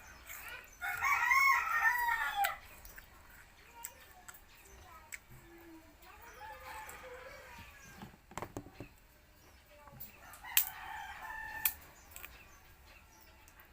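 A rooster crowing once, loud, about a second in, followed by fainter scattered sounds and a few sharp clicks.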